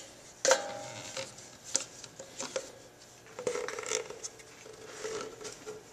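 Hands at work on a steering rack: a metal clink that rings briefly about half a second in, then scattered light clicks and rubbing as a rubber bellows boot is slid over the new inner tie rod onto the rack.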